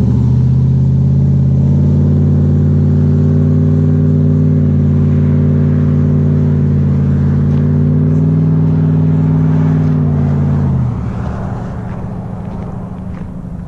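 Silverado's swapped 6.0 L V8 with a Texas Speed 223/226 cam, Kooks 1-7/8 headers and Borla XR-1 muffler, accelerating hard away. A loud exhaust note holds a nearly steady pitch with small steps up, then drops about eleven seconds in and fades.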